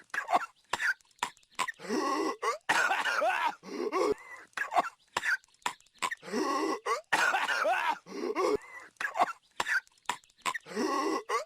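A cartoon character's voice coughing in repeated rasping, hacking fits, each burst about a second long with short breaks between.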